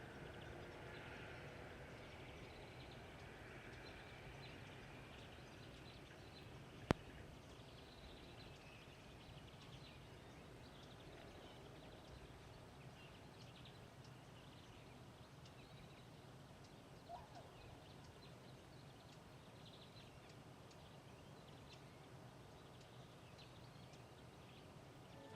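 Faint outdoor ambience with distant birds chirping now and then, and a single sharp click about seven seconds in.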